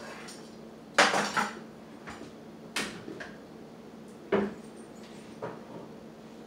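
Metal pots and pans clanking on the stovetop as they are moved around. The loudest clang comes about a second in and rings briefly, followed by three smaller knocks spread over the next few seconds, over a steady low hum.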